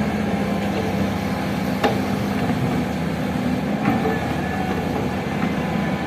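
Heavy diesel engine running steadily, with two short sharp knocks about two seconds apart.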